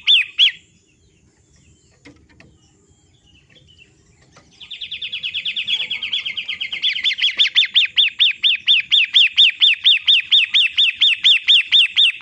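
Long-tailed shrike (pentet) calling: a fast string of repeated sharp, looping notes that stops about half a second in. After a pause of about four seconds a quick rattle starts and settles into evenly repeated notes, about four to five a second.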